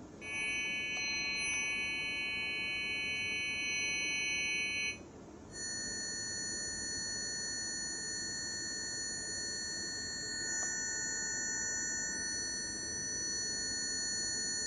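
Frequency-therapy watch playing steady electronic tones, several pitches sounding at once. Just before five seconds in the tones stop, and after a short pause a different set of steady tones begins.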